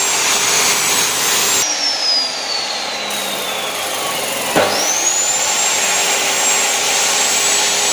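Abrasive chop saw cutting steel, its motor running with a high whine over a grinding hiss. About a second and a half in the whine falls away as the disc slows down; about four and a half seconds in the motor starts again, the whine rising quickly to full speed as the disc cuts into the steel and throws sparks.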